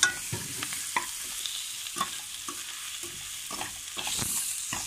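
Sliced onions and ground spices sizzling in hot mustard oil in a kadhai while a metal ladle stirs them, scraping and tapping against the pan at irregular intervals.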